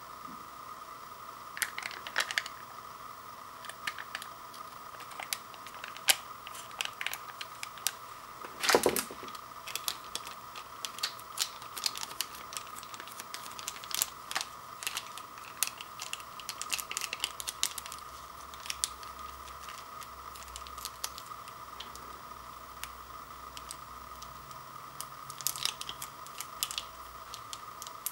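Plastic and foil seasoning packets crinkling and crackling in the hands as they are torn open and squeezed out into a bowl of instant ramen, in irregular bursts of small crackles. One louder rustle comes about nine seconds in. A faint steady hum runs underneath.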